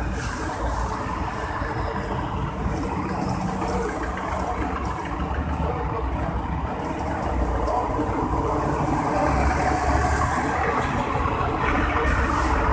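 Steady low rumbling background noise with no distinct events, growing somewhat louder in the second half.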